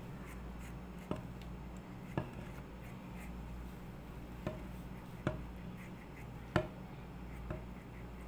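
Egg wash being brushed onto bread dough with a silicone pastry brush, with about six light, sharp knocks of the brush and ceramic bowl against each other and the metal baking tray, over a steady low hum.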